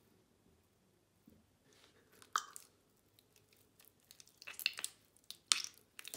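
Wet clay squelching and squishing as hands squeeze and crush a freshly thrown vase, in short irregular bursts: a few about two seconds in, then a run of them near the end.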